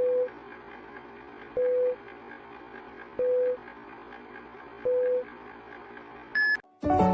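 Short electronic beeps at one pitch, four in all, about one every 1.6 seconds, over a steady hiss. A single higher beep follows about six seconds in, then keyboard music starts at the very end.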